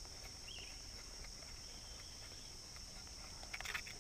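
Faint, steady high-pitched chorus of insects such as crickets, with a few faint clicks near the end.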